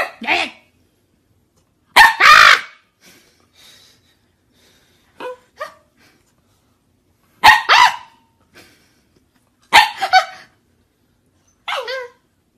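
Corgi barking: short, sharp barks, some single and some in quick pairs, every two seconds or so, a few loud and a few soft.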